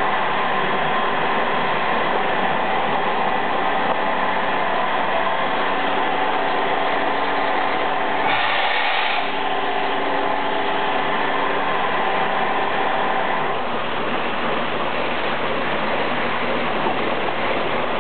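Milking machine running during automatic milking-cluster washing: a steady mechanical hum with a rushing noise of cleaning water and air drawn through the clusters, and a brief louder rush about eight seconds in.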